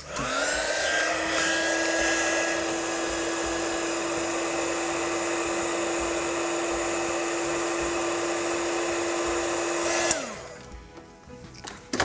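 Heat gun blowing hot air onto heat-shrink tubing over a wire joint. Its fan motor starts with a rising whine, runs steadily for about ten seconds, then is switched off and winds down with a falling pitch.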